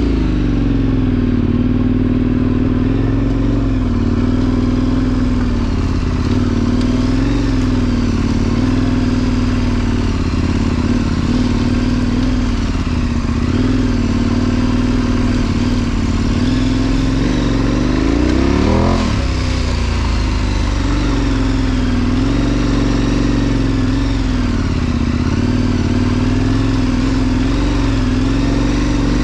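KTM 1090 Adventure's V-twin engine running as the motorcycle is ridden, its pitch wavering up and down with the throttle. About two-thirds of the way through, the revs drop briefly and then climb again.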